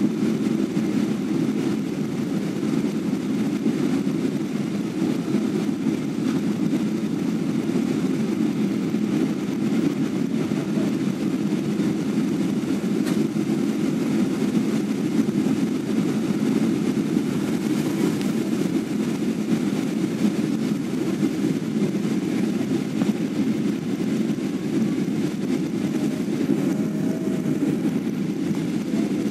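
Airliner cabin noise on final approach and landing: jet engines and rushing air heard from a window seat as a steady, even low noise.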